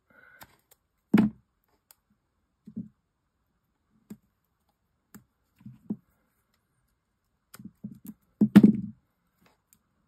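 Irregular light taps and clicks of paper-craft work on a tabletop as small paper pieces, foam tape and tools are handled and set down, with the loudest knocks about a second in and near the end.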